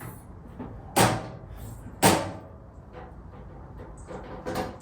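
Steel drawers of a Harbor Freight 30-inch 5-drawer tool cart being slid shut: sharp clunks about a second in, again about a second later, and a lighter one near the end.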